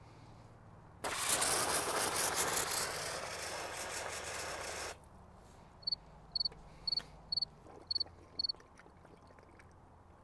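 Shower spray nozzle on a pressurized water tank's hose hissing for about four seconds, then stopping; with the truck parked on a slope, the hose is fed air instead of water and the tank will not deliver water. Then six short high beeps, about half a second apart.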